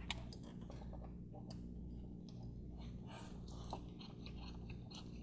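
Faint clicking and scraping of a Torx screwdriver working a T30 screw out of a VW 2.5L vacuum pump housing, with a slightly sharper click a little after halfway, over a steady low hum.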